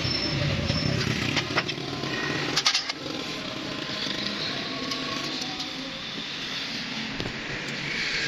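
An engine running steadily, with a few sharp knocks about one and a half and two and a half seconds in.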